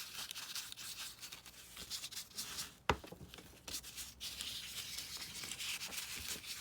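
Ink pad rubbed lightly over crumpled paper, a soft scuffing rustle of many small strokes, with one sharp tap about three seconds in.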